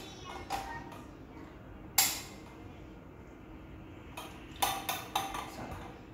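Metal parts of a plant stand clinking as they are handled and fitted together by hand: one sharp ringing clink about two seconds in, then a quick run of clinks near the end.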